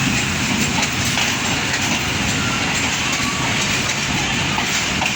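Railway coaches rolling slowly along station tracks during shunting: a steady rumble of wheels on rail, with a diesel locomotive running.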